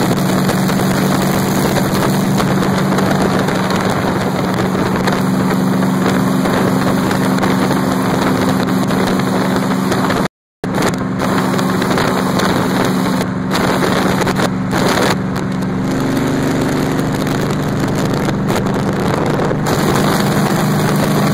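Vintage rat rod truck engine droning steadily at highway cruising speed, with wind rushing past the open cab. The sound cuts out for a moment about ten seconds in, and the engine note steps slightly higher about sixteen seconds in.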